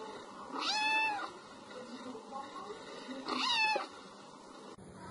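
A domestic cat meowing twice, about two and a half seconds apart, each a short call that rises and falls in pitch.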